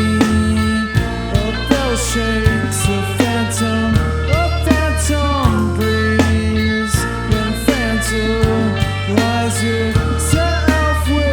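A rock band playing live: a loud, sustained bass, steady drum and cymbal hits, and guitar notes that slide and bend.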